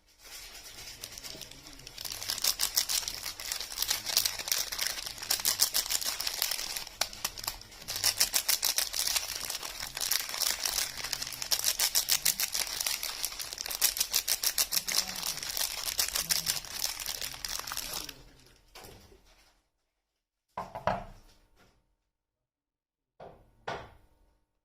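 Soap bar wrapping being handled and unwrapped: the wrapper crinkles and tears in a long dense crackle, with two short rustles near the end.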